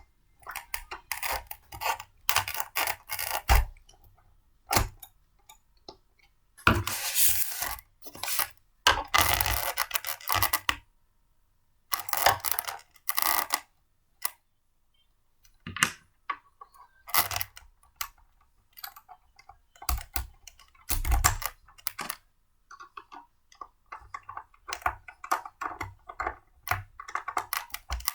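Irregular clicks, knocks and clatter of blender parts being handled and fitted together, with short pauses between bursts.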